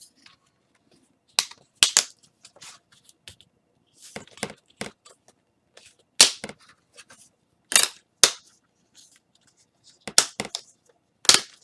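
Plastic clips of an ASUS N705UD laptop's screen bezel snapping loose as the bezel is pried off with a pry tool: a series of sharp snaps at irregular intervals, with quieter clicks and ticks of plastic between.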